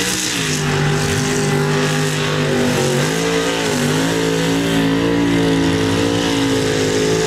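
Mud bog truck's engine held at high revs as it drives through the mud pit, its pitch dipping briefly twice, about three and four seconds in.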